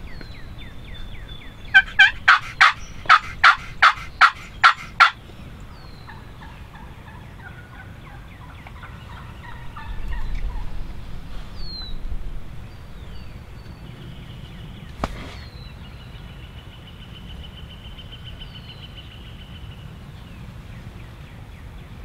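Wild turkey calling a loud series of nine sharp yelps at about three a second, with small birds chirping and trilling more quietly around it.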